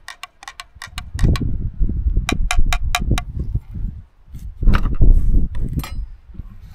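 A metal spoon clinking against the side of a coffee cup while stirring: a few light clinks at first, then a quick run of about five between two and three seconds in, and scattered ones later. Underneath is a loud, uneven low rumbling noise.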